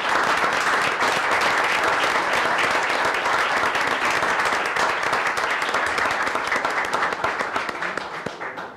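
Audience applauding: steady clapping from a seated crowd that starts to die away near the end.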